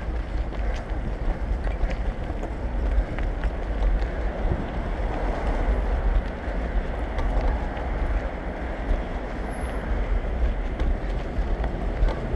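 Wind rumbling on a moving GoPro's microphone, over a steady outdoor hiss of road traffic.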